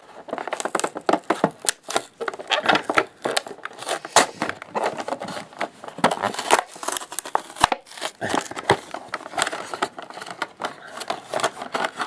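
A toy blister pack being torn open by hand: the cardboard backing card rips and peels away from the clear PET plastic blister, with irregular crinkling, crackling and tearing throughout.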